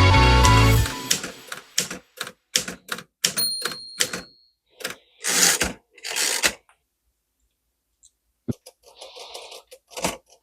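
Klein Continental portable typewriter keys struck one at a time, with sharp separate clacks of the typebars and a short ringing tone partway through. The keys are being worked through with penetrating oil to free typebars that were binding. Two short hissing bursts follow, then faint clicks near the end.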